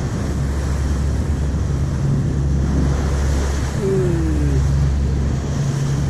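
Passenger ferry's engines running with a steady low drone, over the rush of wind and water along the moving hull.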